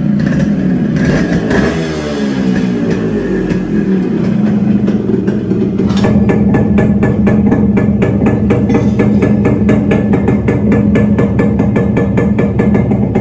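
Yamaha RX100's two-stroke single-cylinder engine running through a modified silencer. It is revved up and down at first, then settles about six seconds in to a steady idle with a fast, even popping from the exhaust.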